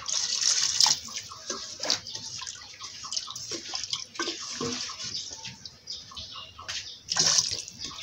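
Wooden spoon stirring a thin tomato sauce in an aluminium pot: the liquid sloshes and splashes, with light clicks of the spoon against the pot. It swells loudest in the first second and again about seven seconds in.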